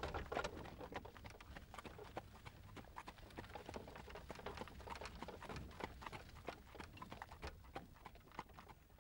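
Faint, irregular clip-clop of horse hooves drawing a hay wagon.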